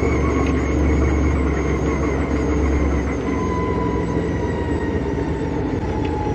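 Stock car running at speed, its engine heard from a camera mounted on the car's hood. The low engine rumble eases a little about three seconds in.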